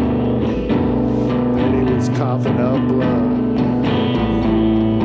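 Live rock music led by electric guitar played through effects pedals, layered sustained notes that shift to a new chord about four seconds in.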